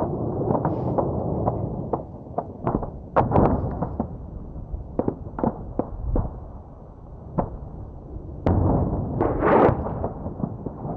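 Gunfire in a street battle: irregular single shots and short bursts cracking out, thickest about three seconds in and again near the end.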